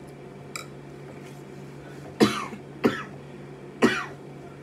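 A woman coughs three times, short sharp coughs about a second apart, the first and last the loudest.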